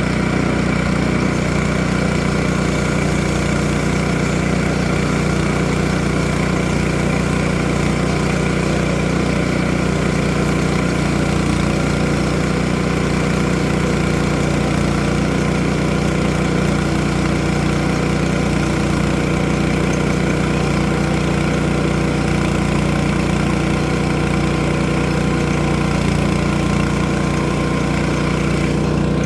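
A portable sawmill's engine running steadily at an even speed, with no change in pitch or loudness.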